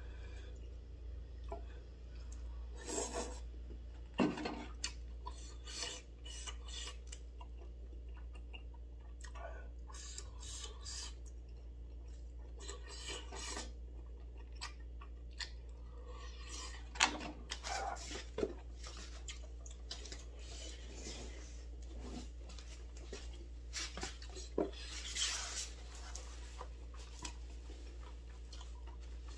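Chopsticks clicking and tapping against takeout bowls during a meal of jjolmyeon and tteokbokki, in scattered short taps, with some chewing, over a steady low hum. A brief rustle near the end.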